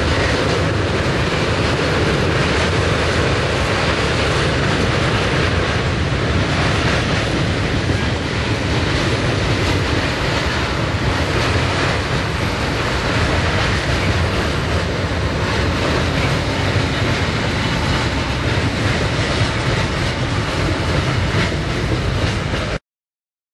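Freight train's tank wagons rolling past, their wheels steadily rumbling and clattering on the rails. The sound cuts off suddenly near the end.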